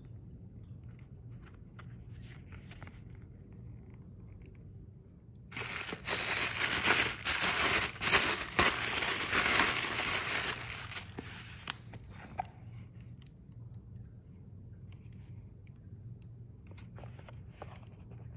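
Thin white wrapping crinkling loudly as it is crumpled and pulled apart by hand, starting about five seconds in and lasting some five seconds. Quieter rustling and handling come before and after it.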